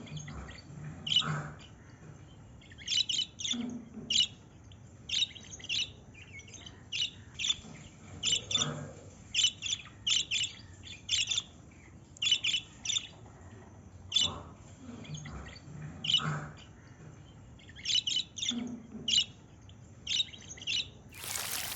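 Pet budgerigars chirping: short, sharp high calls, often two or three in quick succession, about once a second. A loud rustling noise comes right at the end.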